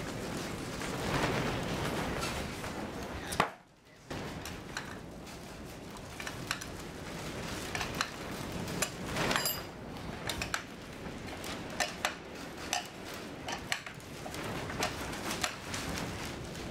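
A wrench clinks and clicks against the nuts of threaded-rod clamps as they are tightened down on glued keel timbers, in irregular metallic ticks. There is one sharp knock about three and a half seconds in.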